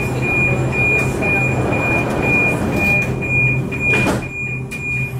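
Door warning beeps of a Budapest M4 Alstom Metropolis metro train, an even high beep about twice a second that signals the doors are closing. A single knock about four seconds in is the doors shutting.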